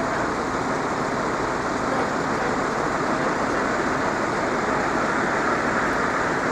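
Steady road traffic noise with no train passing, an even hiss that does not rise or fall.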